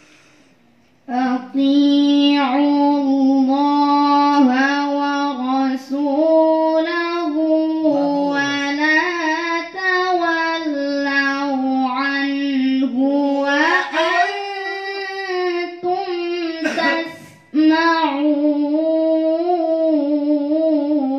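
A young woman's voice chanting Quran recitation (tilawah) in a melodic, long-held style into a handheld microphone. It starts about a second in and pauses briefly for breath near the end.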